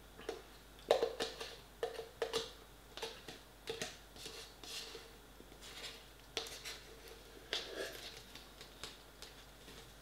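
Metal fork scraping and clicking against the inside of a cardboard instant-noodle pot as the last noodles are picked out, in irregular bursts of taps and scrapes.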